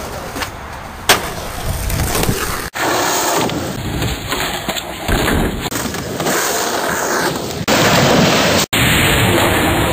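Skateboard wheels rolling, with sharp clacks of the board popping and landing; the loudest clack comes about a second in. The sound is a string of spliced clips and cuts off abruptly twice.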